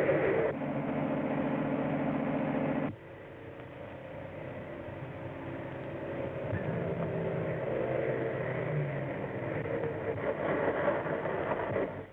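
Car engine running at speed, with abrupt shifts in level about half a second and three seconds in. After the drop it grows steadily louder.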